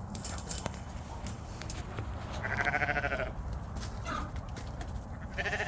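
Sheep bleating twice: one wavering bleat about halfway through and another starting near the end.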